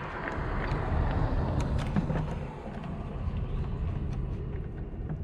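Light clicks and scrapes of a screwdriver and fingers working a plastic headlight bulb-socket connector, over a steady rushing noise.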